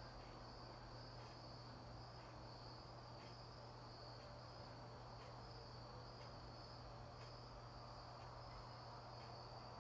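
Faint chorus of crickets chirping steadily in a thin, high-pitched trill, over a low steady hum.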